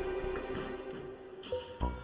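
Background music with a steady beat that drops out briefly in the middle and comes back near the end.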